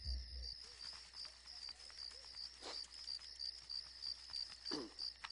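A cricket chirping in a steady pulse, about three chirps a second, with a few faint short sounds over it and a brief falling sound near the end.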